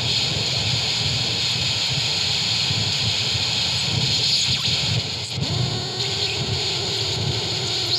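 Noisecore harsh-noise music: a loud, dense wall of static with a strong high hiss and a rough low rumble underneath. About five and a half seconds in, a steady low hum comes in under the noise.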